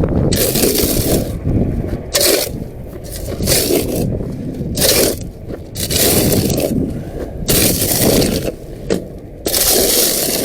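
Steel shovel scraping dried mud off a hard surface in repeated gritty strokes, about seven in ten seconds, over a constant rumble of wind on the microphone.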